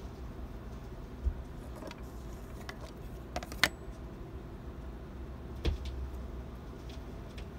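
Turntable tonearm and cartridge being handled and cued by hand onto a spinning 7-inch single: a few light clicks and knocks over a steady low rumble, the sharpest click a little before halfway.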